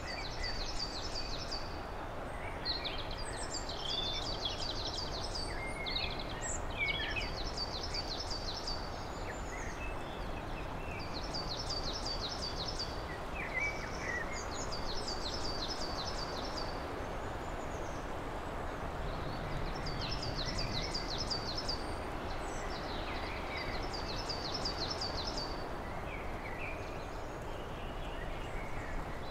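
Songbirds singing: one bird repeats a short, rapid phrase of high notes every few seconds, with scattered calls from others, over a steady rushing background noise.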